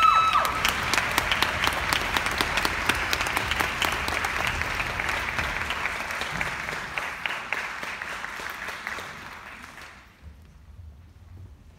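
Audience applauding, dense clapping that gradually thins and dies away about ten seconds in.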